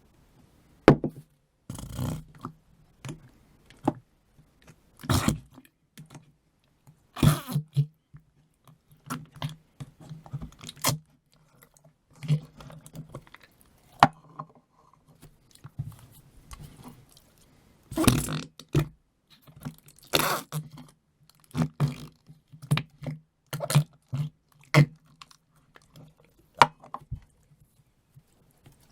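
Noise putty, wetted with a little water, being pressed and squished in its pot, giving short squelching, sticky popping sounds. They come in irregular bursts about a second apart, some sharp and loud.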